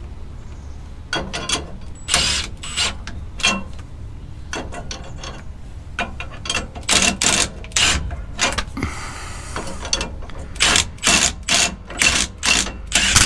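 Milwaukee M18 cordless impact wrench run in short trigger bursts, snugging the U-bolt nuts on a Ford F-150's rear axle a little at a time so the U-bolt plate draws down evenly. The bursts come in clusters, quickening to a rapid run of short pulses near the end.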